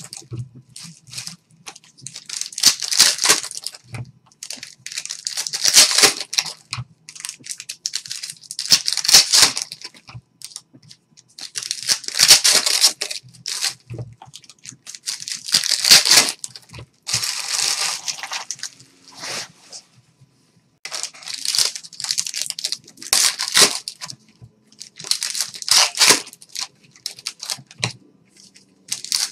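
Trading-card pack wrappers being torn open one after another: a crinkly rip about every three seconds.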